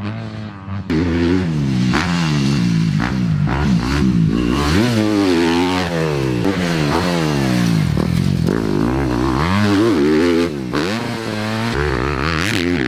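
Yamaha motocross bike's engine revving up and down as it is ridden around a dirt track, the pitch climbing and dropping again every second or so as the rider works the throttle.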